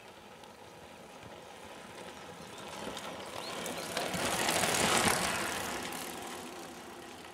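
Loaded touring mountain bike towing a BOB trailer rolling past on a dirt road: the tyre noise on the loose surface and the rattle of the rig grow as it comes close, are loudest about four to five seconds in, then fade as it rides away.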